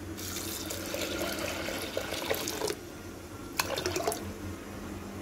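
Water poured from a steel vessel into a pressure cooker, splashing over dal and garlic. It flows strongly for nearly three seconds, then eases, with a few short splashes afterwards.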